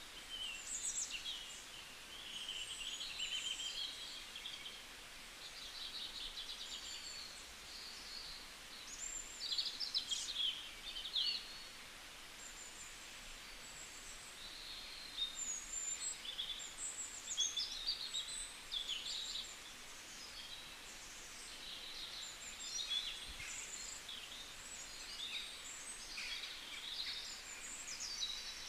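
Small birds chirping and twittering: many short, quick, high calls overlapping, over a faint steady hiss.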